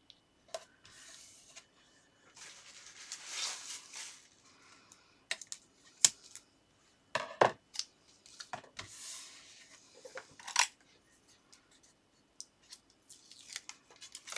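Paper and card being handled while an insert is stuck into a card: two spells of rustling and sliding card, and several sharp taps and clicks on the desk in between.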